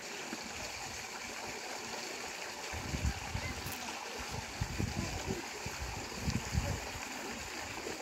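Steady outdoor rushing hiss, with irregular low thumps from about three seconds in.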